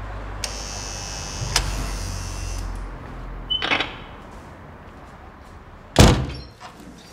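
Electric door-release buzzer of an intercom-controlled street door buzzing for about two seconds as the lock is opened, with a click partway through. About six seconds in the iron-framed door shuts with a loud bang.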